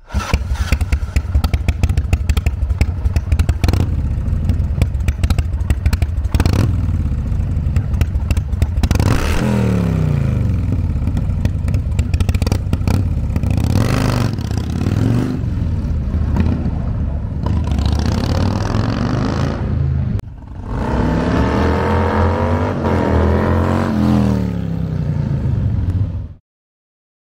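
Stroked 110-cubic-inch Harley-Davidson Evolution V-twin on a 1998 AMS custom chopper, running through a Kesstech exhaust. It idles for about the first nine seconds, then is revved again and again, the pitch rising and falling with each rev. The sound cuts off suddenly near the end.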